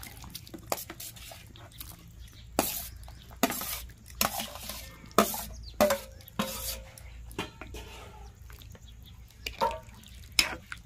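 Steel spoon scraping and clinking against a steel plate and a steel kadai as peas and potato pieces are pushed into thin gravy and stirred: a string of sharp, unevenly spaced clinks.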